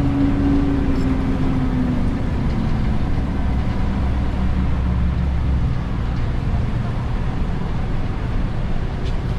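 Ikarus EAG E94 city bus heard from inside its passenger cabin while driving: a steady low engine and road rumble. A pitched engine hum sinks slightly and fades about two seconds in, and the rumble eases a little about six seconds in.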